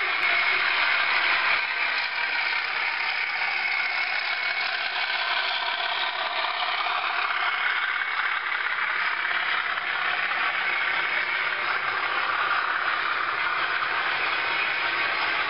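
00 gauge model train running along the track, a steady mechanical whirring and rattling of its wheels and drive.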